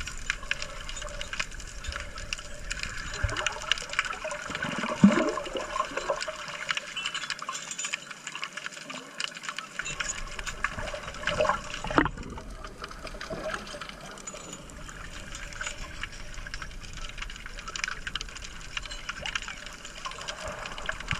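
Underwater sound picked up by a submerged handheld camera: muffled water noise full of small scattered clicks, with a short gurgle about five seconds in and a sharp knock about twelve seconds in.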